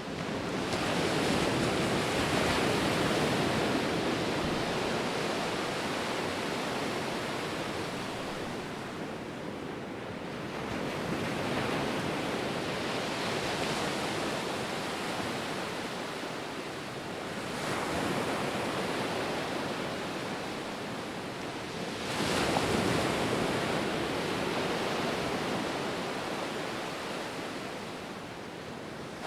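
Ocean surf: waves breaking and washing up the shore, a steady rush that surges with each new wave, about four times, and slowly ebbs between them.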